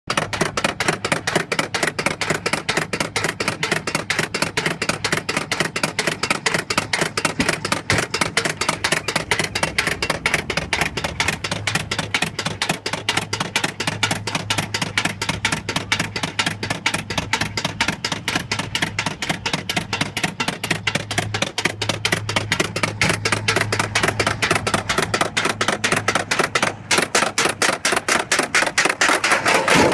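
Summer toboggan sled being towed up the lift section of its stainless-steel track, with rapid, even clicking several times a second from the lift mechanism and track, over a low steady hum that comes in about a third of the way through. The clicking stops at the very end.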